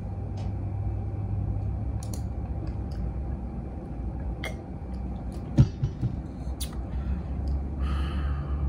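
A few scattered computer mouse clicks over a steady low room rumble.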